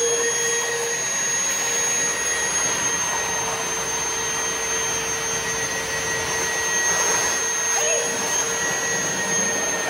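Two Milwaukee wet/dry shop vacuums running together at full power, sucking water up through their hoses. They make a steady rushing noise with a constant high whine.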